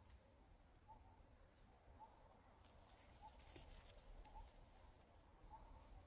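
Near silence, with faint short animal chirps at one pitch repeating roughly once a second.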